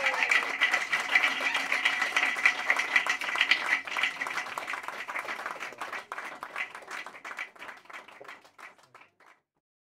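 Small club audience applauding after a song, with a steady high tone under the clapping for the first few seconds. The claps grow sparse and stop about nine seconds in.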